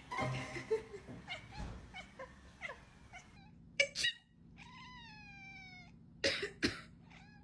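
A cat meowing: several short meows, then one long drawn-out meow that falls slightly at the end. A few short, sharp, noisy sounds come just before and just after the long meow.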